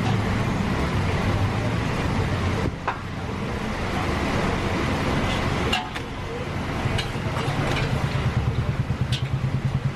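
Roadside traffic with a vehicle engine running, its low hum pulsing rapidly and evenly in the last few seconds, and a few sharp clinks.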